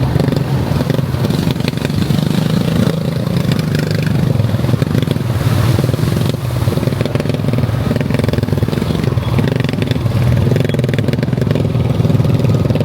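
ATV engine running steadily while being ridden, with rattling and clatter over the engine.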